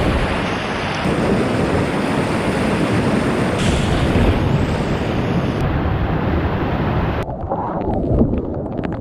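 Loud, steady rush of whitewater rapids churning around a kayak, heard close on the paddler's camera, with abrupt jumps in tone where separate clips are cut together.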